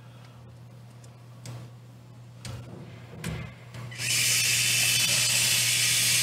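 A few light handling clicks, then about four seconds in a small electric screwdriver runs with a steady high whir for about two and a half seconds, driving a screw into the transmission bracket, and stops abruptly.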